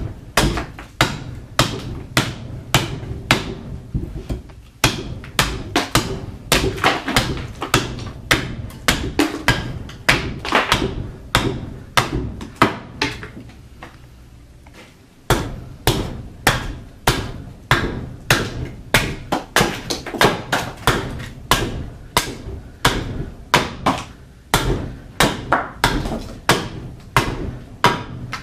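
Carving axe hewing a log of green (still wet) black walnut on a chopping stump: a steady run of sharp chops, about two a second, with a short pause about halfway through.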